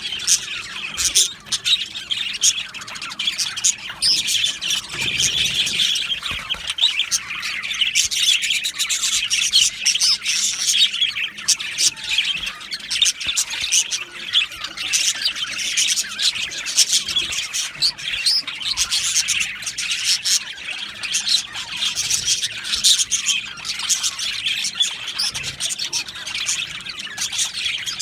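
A flock of budgerigars chirping and chattering at once: a dense, unbroken high-pitched twitter of many overlapping calls.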